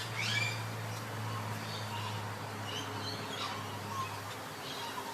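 Birds chirping in scattered short calls, over a steady low hum that stops about four seconds in.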